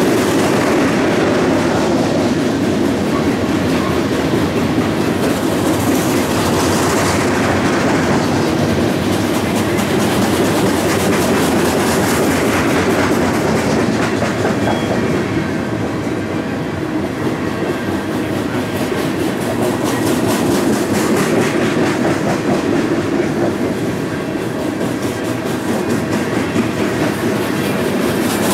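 Open-top freight hopper cars rolling past: a steady rumble of steel wheels on rail, with rapid clickety-clack as the wheels cross the rail joints.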